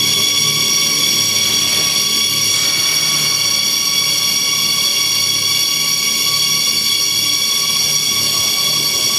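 A loud, steady, shrill high-pitched drone of several stacked tones, a noise-collage sound in an experimental performance, that cuts off suddenly at the end.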